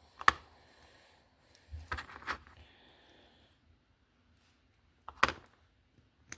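Small metal parts and a hand tool clicking and tapping while a tiny shim is worked off a slot car part: a sharp click just after the start, a few lighter taps around two seconds in, and two more clicks near the end.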